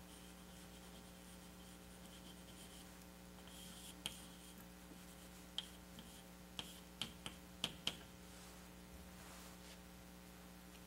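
Quiet room with a steady electrical hum. A scattering of faint, short clicks and taps comes between about four and eight seconds in.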